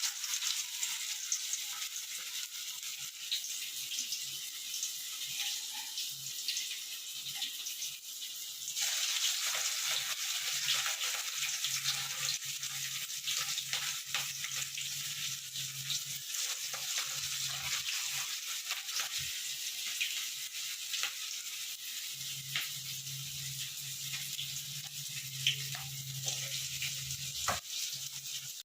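Pasta vadai deep-frying in hot oil: a steady sizzle with small crackles, getting louder about nine seconds in.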